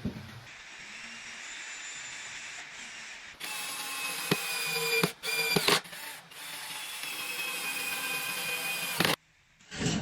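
Electric circular saw set into a homemade saw table, its motor running with a steady high whine. It runs quieter at first, grows louder about a third of the way in, breaks off briefly near the middle, and stops abruptly about a second before the end.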